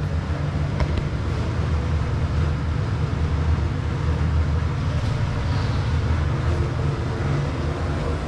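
A steady low mechanical rumble that holds level throughout.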